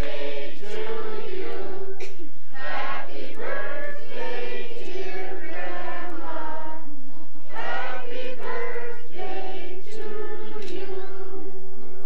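A group of people singing a birthday song together in long held phrases, with two short breaths between lines.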